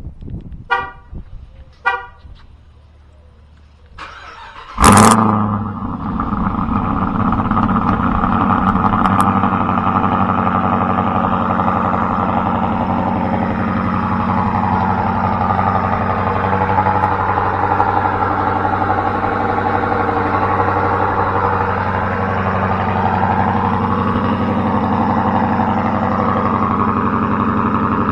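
Two short chirps, then a cold start of a Dodge Durango R/T's 5.7 L Hemi V8 with a Greene cam, long-tube headers and a Borla S-Type exhaust. The engine cranks and catches a little before five seconds in with a loud flare, then settles into a steady idle.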